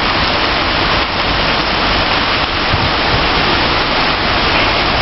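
Torrential rain pouring down, a loud, steady rushing hiss.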